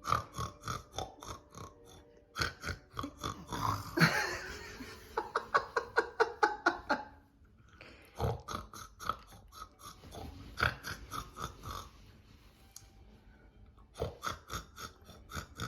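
A person snoring, a rattling, clicking snore in several long runs of a few seconds each with short pauses between.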